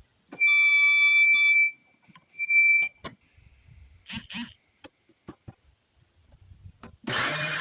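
Two loud electronic beeps, a long one of over a second and then a short one, followed by a few clicks and knocks. Near the end a DeWalt DW735 thickness planer is switched on, its motor and built-in dust-collection blower starting up with a steady hum.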